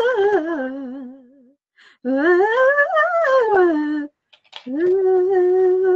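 A woman's vocal warm-up: her voice slides up and then down in pitch, trailing off in a wavering note. About two seconds in it sweeps up and down again, and from about five seconds in it holds one steady note.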